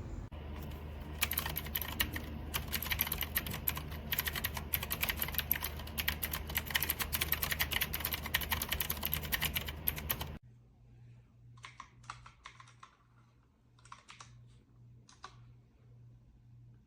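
Rapid typing on a mechanical keyboard with clicky blue switches, a dense run of key clicks. It cuts off abruptly about ten seconds in, leaving a few fainter, scattered clusters of keystrokes over a low hum.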